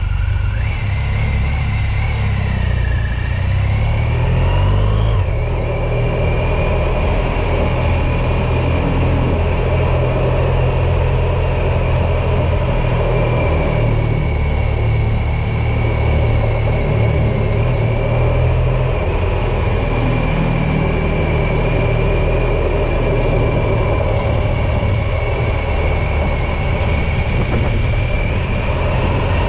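Motor vehicle driving, heard from on board: a steady low rumble under a high whine. The whine dips and rises in pitch over the first few seconds as the speed changes through a turn, then holds steady.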